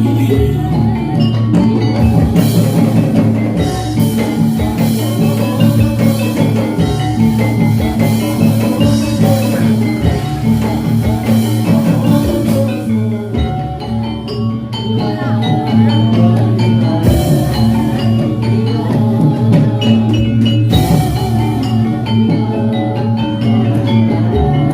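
Live Javanese gamelan accompaniment for a jathilan dance: metallophones play a fast, repeating melody over drums and steady low tones, with bursts of cymbal-like crashing now and then.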